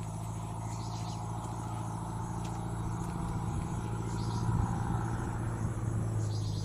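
A motor running with a steady low hum, growing slowly louder.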